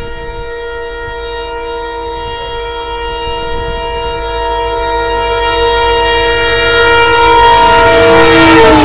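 Diesel locomotive's horn held as one long chord as the train approaches at speed, growing steadily louder; about eight seconds in the pitch drops as the locomotive passes, and the rush of the train builds underneath.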